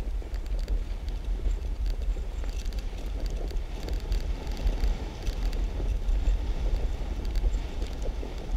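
Wind buffeting the microphone of a moving bicycle on an asphalt path, a steady low rumble with tyre noise on the pavement and faint light rattling ticks from the bike.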